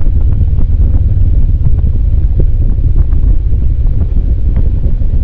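Adventure motorcycle riding a rough dirt trail: a steady low rumble of engine and wind buffeting the microphone, with scattered small knocks from the bike over stones.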